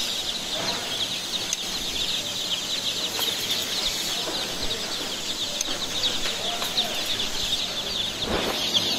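Many day-old laying-hen chicks peeping at once, a dense, continuous chorus of short, high, falling cheeps.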